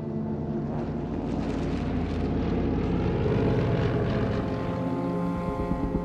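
Twin radial piston engines and propellers of a DC-3 transport plane running at power as it rolls down a grass strip for take-off, a pulsing propeller throb that grows louder over the first few seconds.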